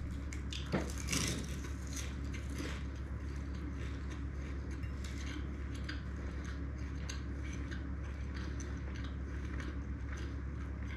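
Close-miked eating of bougatsa: a fork clicking and scraping on a plate and crisp phyllo pastry crackling as it is chewed, with a couple of louder clicks about a second in. A steady low hum runs underneath.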